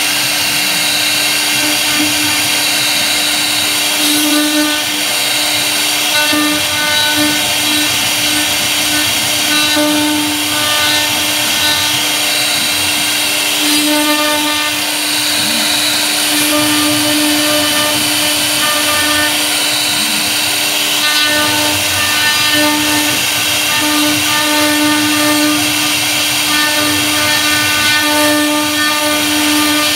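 CNC router spindle running steadily with a V-bit, carving a relief pattern into a wooden board. It makes a constant whine over the cutting noise, and the whine swells and eases in patches as the bit works along the pattern.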